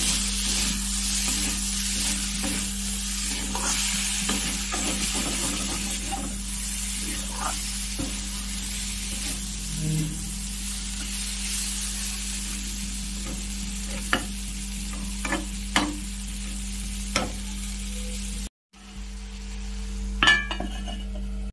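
Jackfruit, tomato and capsicum sizzling as they are stir-fried in a kadai, with a metal spatula scraping and clicking against the pan. After a brief break in the sound, a steel plate clatters once as it is set over the kadai as a lid.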